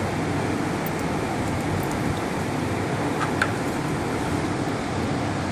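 Steady rushing background noise, with a few faint clicks and one small tap about three and a half seconds in as a plastic guard is fitted back onto a utility vehicle's front wheel knuckle.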